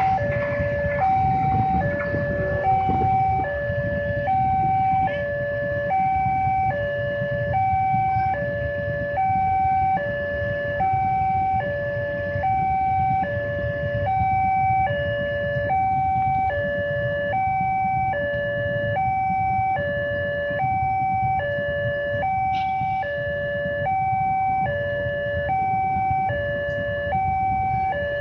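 Railway level-crossing warning alarm sounding from its pole-mounted loudspeaker: two electronic tones alternating high-low in a steady, even cycle, over a low rumble.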